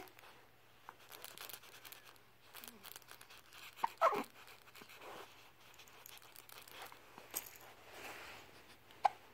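Hiccups: a short, sharp hiccup with a falling pitch about four seconds in, and a smaller one near the end, with faint rustling between.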